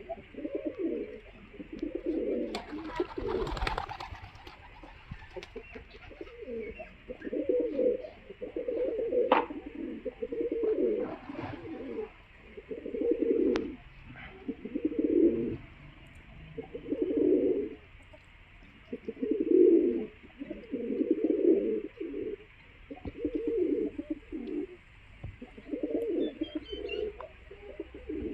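Pigeons cooing, low repeated coos coming about every two seconds. About three seconds in, a brief, noisier sound stands out above the coos.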